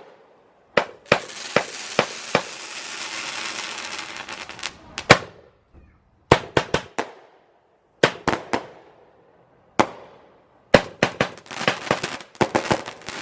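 Multi-shot consumer firework cake going off: a run of sharp bangs from bursting shells. A dense crackling hiss fills the first few seconds, and the bangs then come in quick clusters of three to five, with short gaps between.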